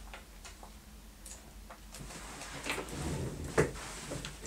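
Hands rummaging through small parts and packets of hardware on a tabletop, searching for pickup screws: light clicks, then louder rustling and clattering from about two seconds in, with one sharp click near the end.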